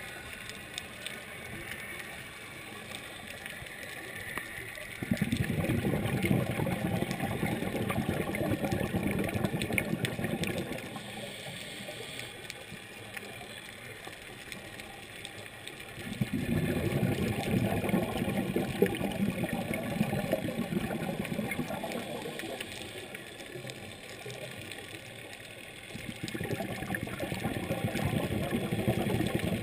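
Scuba diver's breathing heard underwater: three long bursts of exhaled regulator bubbles, about ten seconds apart, with quieter stretches between them.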